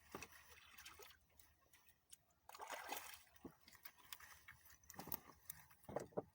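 Faint, irregular sloshing and splashing of water, with scattered small clicks and knocks.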